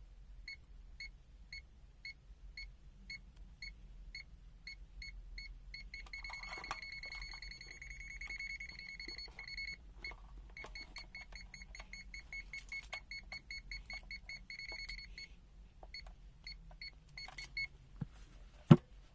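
ZOYI ZT-M2H multimeter's buzzer beeping as it senses a live cable in non-contact voltage mode. It beeps about three times a second, runs into a steady high tone for a few seconds, then beeps rapidly again before stopping, with a sharp click near the end.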